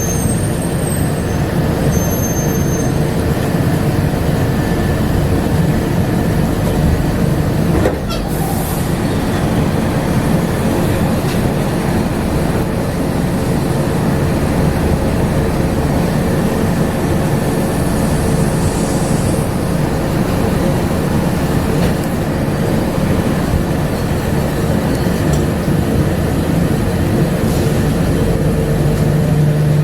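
Running noise of a Bombardier APM100 rubber-tyred people mover: a steady rumble of tyres on the guideway with a constant hum from the drive. There is a brief click about eight seconds in, and a stronger low steady hum comes in near the end.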